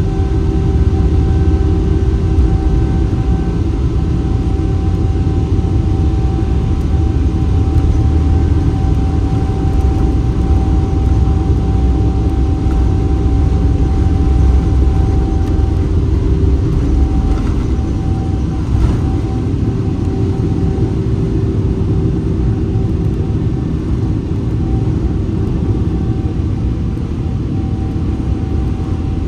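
Boeing 777-300ER jet engines at high thrust during takeoff, heard inside the passenger cabin as a steady loud low rumble with a few steady whining tones above it. The lowest rumble eases a little past the halfway point.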